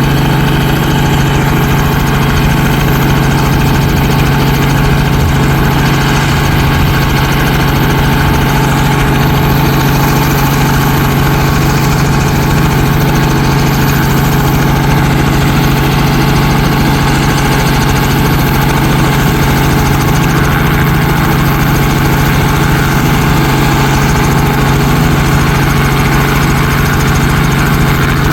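An engine running steadily at a constant speed, with a strong low hum and no change in pitch or level.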